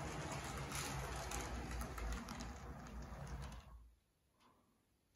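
Athearn CSX SD70MAC model locomotive running on DC track: its small electric motor and gears whirring, with the wheels rattling on the rails. The sound fades out about four seconds in, and a sharp click comes at the very end.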